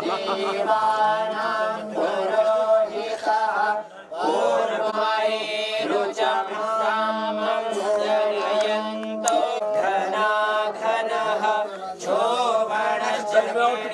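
Hindu devotional mantra chanting: sung voices in a steady, melodic recitation over a low sustained tone, pausing briefly about four seconds in.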